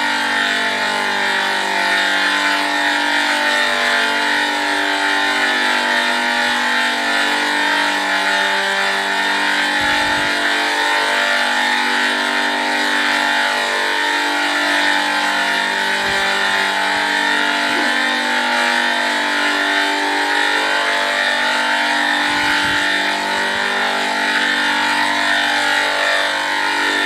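Digitally layered, pitch-shifted audio in the 'G major' edit style: many copies of one sound stacked at different pitches into a loud, buzzing chord-like drone, its held tones shifting and overlapping in staggered steps.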